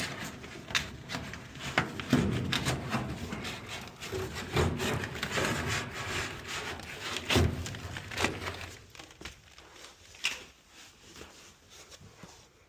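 Irregular rubbing, scraping and knocking of hands handling parts inside a furnace's blower cabinet, busier for most of the time and thinning out near the end.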